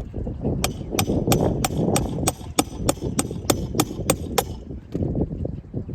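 Hammer driving a 1¼-inch roofing nail through a laminate asphalt shingle: about a dozen sharp, evenly spaced strikes, roughly three a second, that stop a little past the middle.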